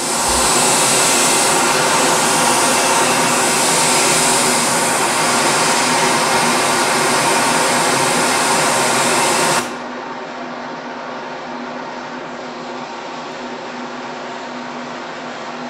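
Compressed-air hiss from the cooling nozzles on a toothpaste-tube filling machine. At first it is the original copper cooling pipes with drilled holes, a loud, bright hiss. About ten seconds in it drops abruptly to a quieter, duller hiss over a steady machine hum: the retrofitted Coanda-effect linear air nozzles, about 12 dB(A) quieter.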